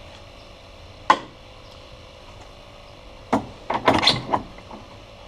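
Handling clicks and knocks as a spool gun's power cable connector is fitted into a MIG welder: one sharp click about a second in, then a quick cluster of knocks and clicks after about three seconds.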